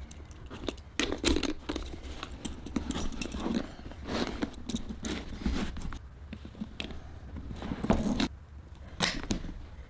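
Metal buckles and tuck-lock clasps on a leather bag clinking, with leather straps scuffing, as the bag is handled and fastened; irregular clicks, the loudest about eight and nine seconds in.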